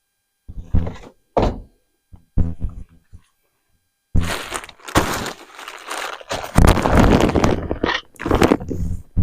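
A series of short, separate thunks and knocks, about five of them, then about four seconds in a loud, continuous, rough noise that runs on.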